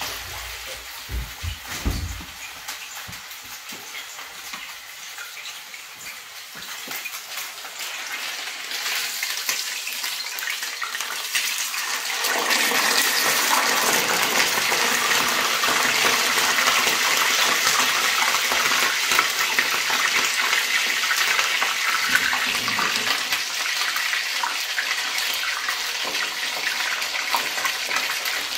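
A kitchen tap runs at first. About twelve seconds in, a stuffed chicken breast goes into hot cooking oil in a frying pan and a loud, steady sizzle starts and keeps going as it fries.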